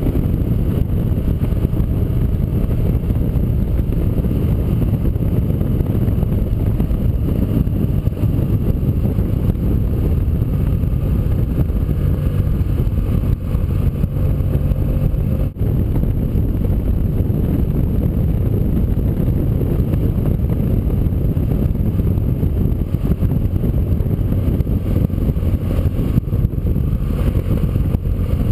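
Motorcycle riding at a steady speed: an even engine drone mixed with wind and road noise, with no revving or gear changes.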